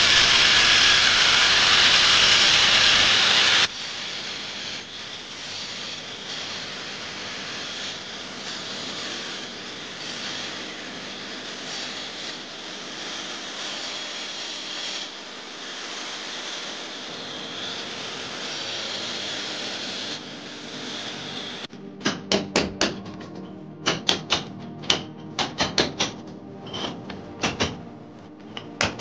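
Handheld electric grinder cutting a groove into a brick wall: a loud, steady grind that drops suddenly to a quieter grind about 4 seconds in. From about 22 seconds, a hammer strikes a chisel in quick, uneven blows, chipping the brick out of the cut channel.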